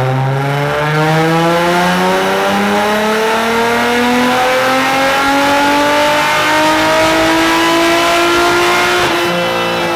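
Infiniti G35's VQ35DE V6, on catless test pipes and a custom exhaust, making a wide-open-throttle pull on a chassis dyno. It is loud, and its pitch climbs steadily for about nine seconds before the throttle closes and the revs fall away near the end.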